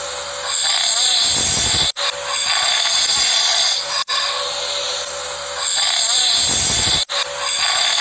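Open-mouthed snoring of a heavily drunk sleeping man: two long rattling snores about five seconds apart, over a steady hiss.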